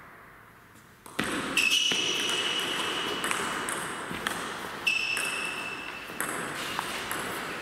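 Table tennis rally: the celluloid ball clicking off bats and table at an irregular pace, starting about a second in. Mixed in are a couple of high, drawn-out squeaks, typical of players' shoes on the sports floor.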